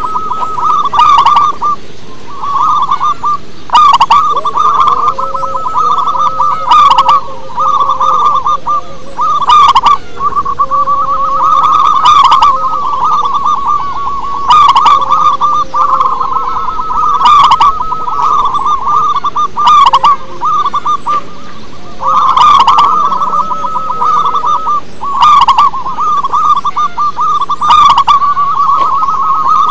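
Zebra dove (perkutut) cooing: a fast, trilling run of soft notes, rising to a louder phrase about every two and a half seconds.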